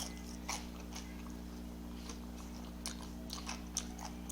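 A person chewing food close to the microphone, with a few faint, scattered mouth clicks over a steady low hum.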